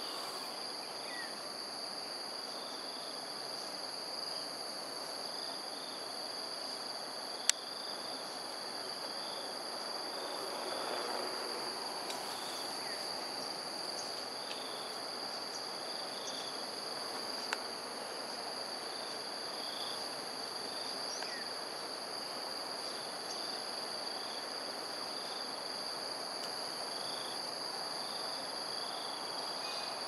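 Steady insect chorus, a high-pitched drone in several layers, with short chirps repeating every second or two. Two sharp clicks stand out, one about a third of the way in and one a little past halfway.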